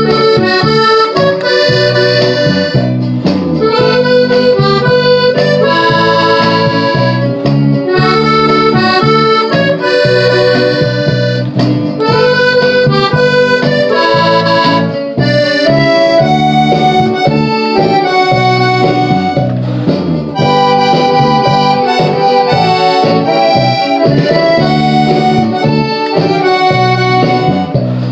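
Three-row diatonic button accordion playing a norteño song melody over bass and chord accompaniment, the plain tune without ornaments, played by a beginner.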